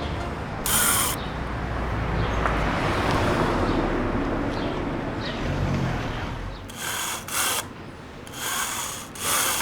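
A film camera's mechanism, most likely the Widelux panoramic camera being wound and fired, making several short ratcheting whirs near the end. Before them comes a stretch of steady background noise.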